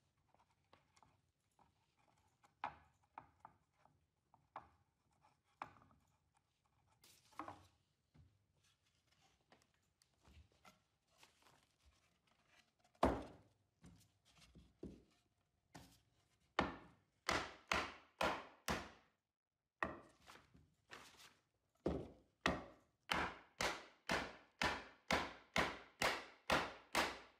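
Mallet blows driving glued half-blind dovetail joints of a plywood drawer together. A few light knocks and handling sounds at first, then from about halfway a run of sharp wooden strikes, about two to three a second near the end.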